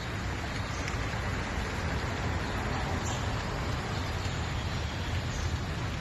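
Steady rush of a high, muddy creek flowing fast: a full, even hiss with a strong low rumble underneath.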